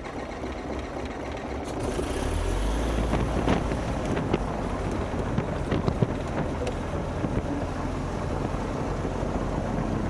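Van's RV-10's piston engine idling just after start, heard from inside the cockpit with the door open and propeller wash blowing in; it grows louder about two seconds in. A few sharp clicks in the middle.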